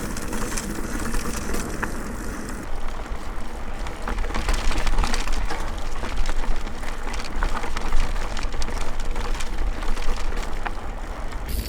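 Mountain bike riding as picked up by a GoPro's microphone: tyre noise on a dirt trail, wind rumble on the mic, and frequent small clicks and rattles from the bike. The tone of the recording changes abruptly about two and a half seconds in and again near the end, where the footage switches between camera recordings.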